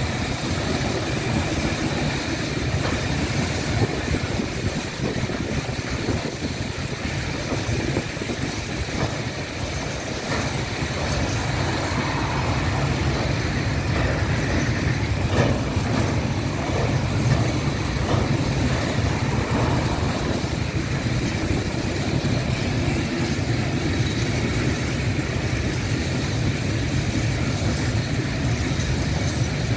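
Freight train flat and container wagons rolling past on the track: a steady rumble of wheels on rail.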